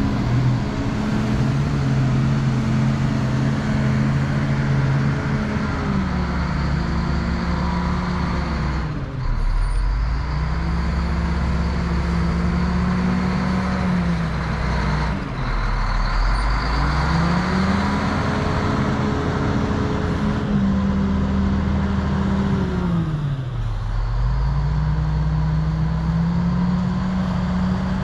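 Diesel engine of a wheel loader working, with a steady pitched hum; its engine speed falls and climbs back three times as the machine works the soil.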